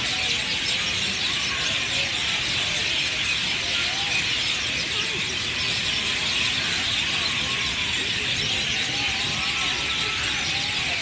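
A flock of small birds chirping together: a dense, continuous chatter of many overlapping high chirps.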